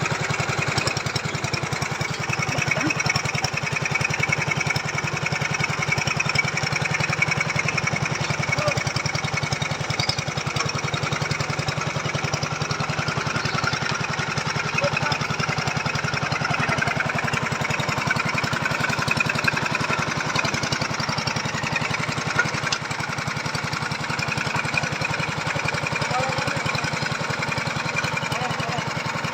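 Small petrol engine of a motorised foundation boring machine running steadily.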